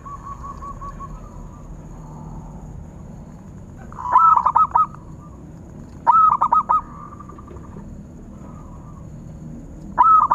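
Zebra dove (perkutut) calling: three loud bursts of quick, rippling cooing notes a couple of seconds apart, with a fainter run of repeated coos in the first second.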